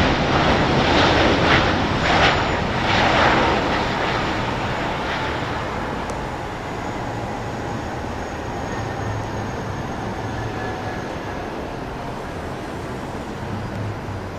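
Airbus A330-300's Pratt & Whitney jet engines rushing loudly during the landing roll-out, with a few surges in the first few seconds, then easing off to a steadier, quieter level as the airliner slows.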